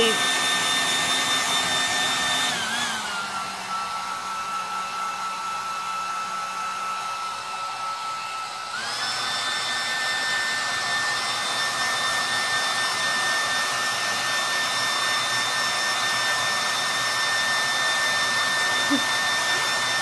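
Handheld hair dryer running steadily with a whine, drying a dog's coat after a bath. About two and a half seconds in, its pitch and level drop, and near nine seconds it glides back up to the higher pitch.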